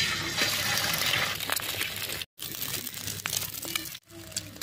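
Eggs frying in hot oil in a pot, a steady sizzle, with a few sharp clicks of eggshells being cracked. The sound breaks off briefly twice.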